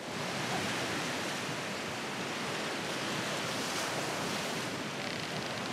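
Sea surf washing onto a beach, a steady, unbroken rush of noise.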